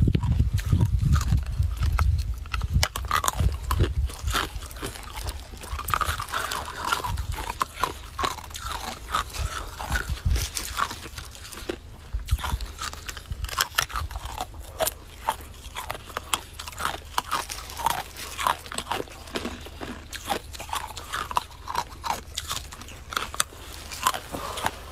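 Icicles being bitten and chewed: a steady run of crisp crunches of ice between the teeth, several a second. A low rumble sits under the first few seconds.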